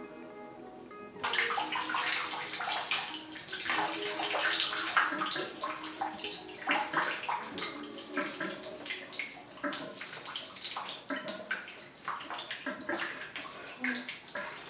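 Background music for about the first second, then suddenly a running shower: water spraying and splashing unevenly.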